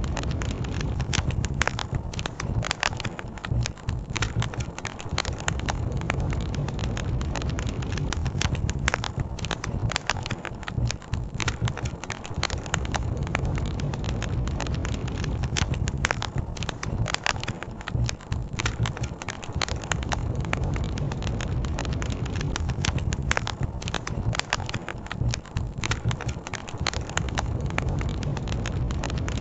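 Campfire crackling, with frequent sharp pops and snaps over a steady low rumble.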